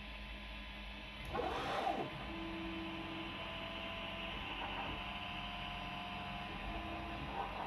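Original Prusa i3 MK2 3D printer running: its stepper motors whine at a few steady pitches that start, stop and change as the print head moves, over a steady hum. A brief louder noise comes about a second and a half in.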